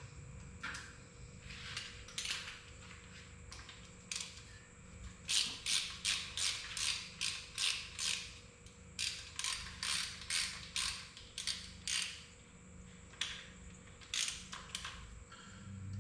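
Hand ratchet wrench clicking as it turns bolts on an engine, in runs of about three strokes a second with short pauses between them.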